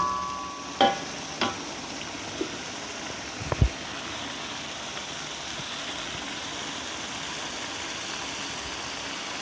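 Steady sizzling of spice paste frying in oil in a pan, with a few sharp knocks in the first four seconds, the loudest about three and a half seconds in.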